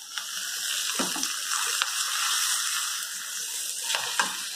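Hot oil with mustard seeds sizzling in a small iron tempering ladle: a steady hiss with a few light clicks, as the tempering is poured into beetroot pachadi.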